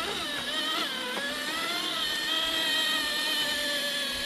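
Electric motor and geared drivetrain of a 1/7-scale RLAARLO MK-07 RC crawler whining under load as it climbs a steep slope in four-wheel drive. The pitch wavers over the first second or so, then holds steady.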